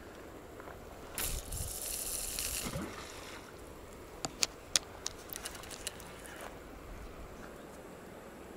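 Cast with a spinning rod: a rush of the rod swinging and line running off the spinning reel for about two seconds, then several sharp clicks as the rod and reel are handled after the cast.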